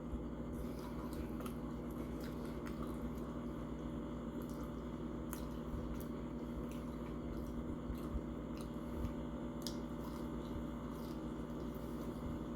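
Close-up chewing: soft wet squishing mouth sounds with scattered small clicks, over a steady low hum.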